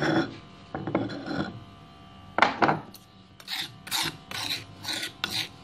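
Stone pestle scraping and grinding against a stone mortar, working fried tempe and biscuit into a smooth bait paste. A few longer strokes come first, then short gritty scrapes about twice a second.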